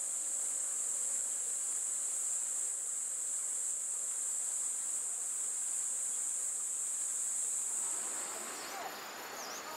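Insects buzzing in a steady, high-pitched chorus that stops abruptly about eight seconds in, leaving a softer hiss and a few faint short chirps.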